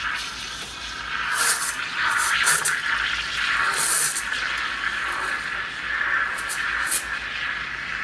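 Lelit PL41TEM espresso machine's steam wand hissing as it froths milk in a stainless steel pitcher, with several short, sharper hisses along the way.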